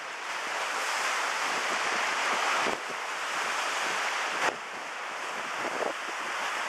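Storm-force wind buffeting the microphone over the rush of lake waves breaking and splashing against a shoreline wall.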